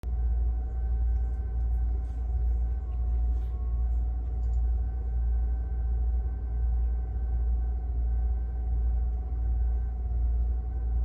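Electric pet water fountain running: a steady low rumble with a faint steady hum over it.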